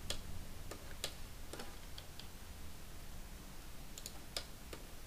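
Scattered, irregular clicks of a computer mouse and keyboard as 3D modelling software is operated, a dozen or so light clicks over a faint steady low hum.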